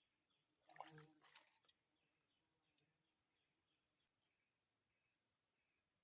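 Near silence: faint, steady high-pitched insect drone in a swamp, with one brief low murmur about a second in.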